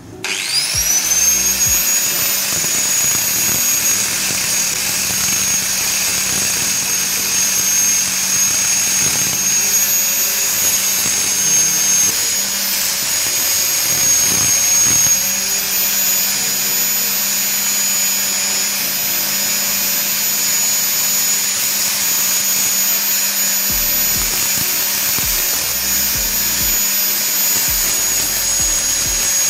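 Angle grinder in a bench cut-off stand spinning up with a quick rising whine, then running at a steady high whine while a steel shock-link plate is ground against the wheel to round off its cut edge.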